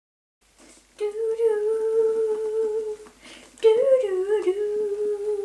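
A woman humming two long held notes, the second one starting higher and dipping before it settles.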